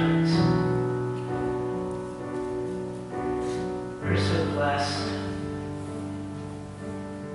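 Keyboard playing slow, held chords, moving to a new chord about a second in and again about four seconds in.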